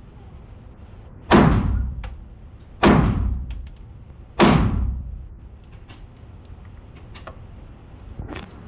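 Three handgun shots about a second and a half apart, each loud and followed by echo, with a fainter knock near the end.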